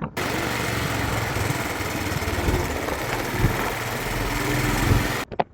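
Motorbike riding noise: the engine running under steady wind rush on the microphone. It starts suddenly and cuts off suddenly about five seconds later.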